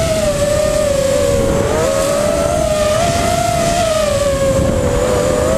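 250-size FPV racing quadcopter's brushless motors and propellers whining, heard from the onboard camera; the pitch wavers up and down with the throttle.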